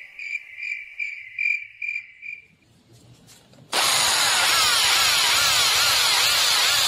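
Evenly pulsing high chirps, about three a second, fade out over the first two and a half seconds. After a brief hush, an electric drill starts abruptly just past halfway and runs steadily, boring into the wooden core of a metal collar.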